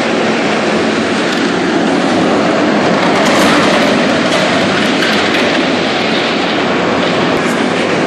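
Loud, steady rushing noise with no break, a few faint clicks in the middle of it.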